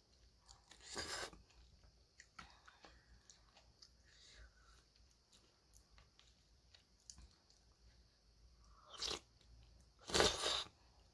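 Eating noodle soup: quiet chewing and mouth clicks, with noisy slurps of noodles from a plastic spoon about a second in and near the end, the last the loudest.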